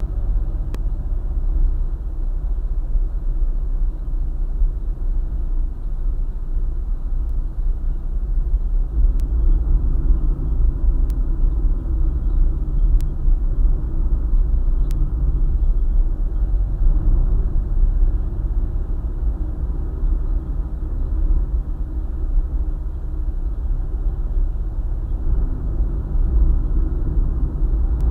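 Steady low rumble of a car driving along a highway: engine and tyre road noise.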